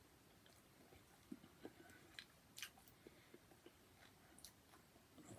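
Faint, quiet chewing of naan bread, with a few soft scattered mouth clicks.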